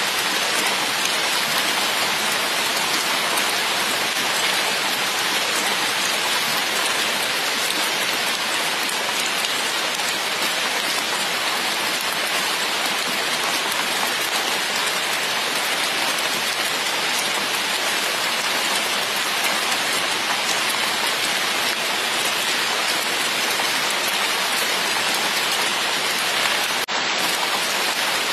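Heavy rain falling steadily onto flooded pavement, an even unbroken wash of pouring water.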